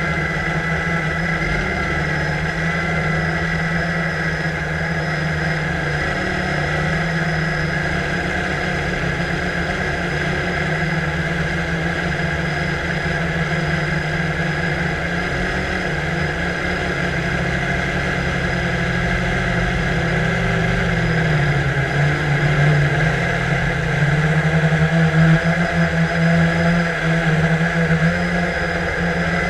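Drone's electric motors and propellers humming steadily, heard through the camera it carries, the pitch drifting slightly as it manoeuvres. The hum gets louder and more uneven about three quarters of the way through.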